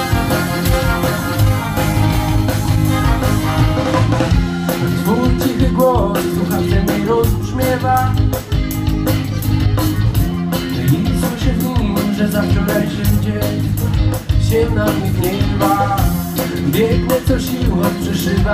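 Live band playing with a horn section of trombone, trumpet and saxophone over electric guitars, bass guitar and drums; a man starts singing about four seconds in.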